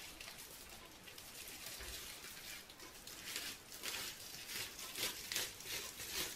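Bubble wrap being peeled slowly off the top of a soap loaf by gloved hands: soft plastic crinkling and crackling, growing louder and busier about three seconds in.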